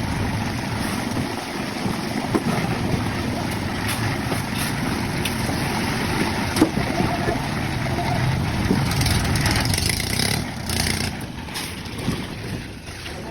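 Construction machinery running steadily during a concrete pour, a continuous engine rumble with a few sharp knocks, easing off somewhat near the end.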